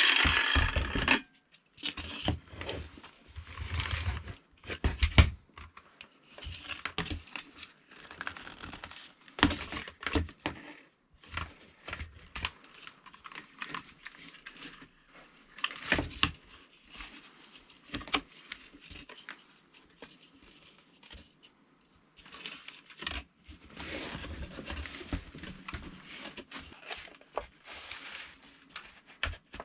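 A power tool cuts off about a second in, followed by irregular clicks, knocks and rustling of parts being handled by hand on a workbench.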